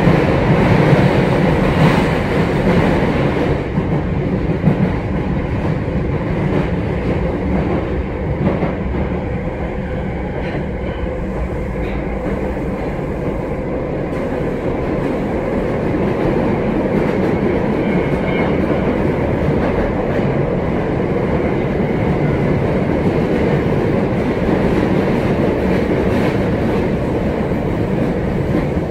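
Osaka Metro 22 series subway car running at speed, heard inside the passenger cabin: a steady rumble of wheels and running gear with a few clicks over rail joints. The noise eases a little about a third of the way in and builds again past the middle.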